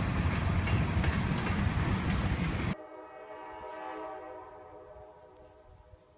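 Freight train tank cars rolling past, with steel wheels clicking over the rail joints, until the sound cuts off suddenly. Then a faint train horn sounds as one steady chord that swells briefly and fades away.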